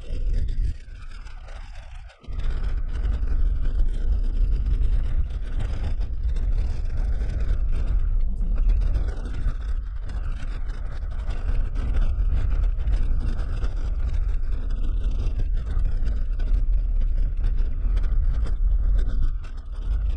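Suzuki Jimny driving over a rough dirt track, heard from inside the cabin: a steady low rumble of engine and tyres with gravel crunching and rattles. The sound dips briefly about two seconds in.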